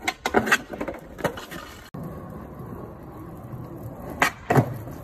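Skateboard wheels rolling over rough pavement with a steady low rumble, broken by sharp clacks and knocks of the board against the ground, several in the first second and again near the end.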